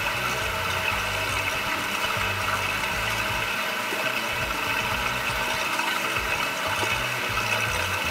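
Steady mechanical running of a bicycle wheel braking test rig: its drive motor and the spinning wheel turning at constant speed, with a light rattle.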